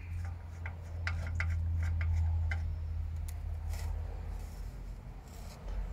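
Scattered light metallic clicks and taps of small fittings and a worklight being handled in a car's front motor compartment, over a steady low hum.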